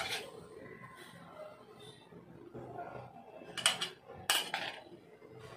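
A metal spoon clinking and scraping against a bowl as stuffing is scooped out. There is a sharp clink at the start, then two louder ones a little over half a second apart later on.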